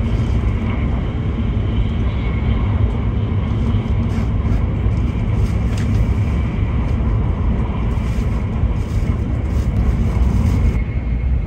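Cabin noise inside an E7 series Hokuriku Shinkansen car running at speed: a steady low rumble.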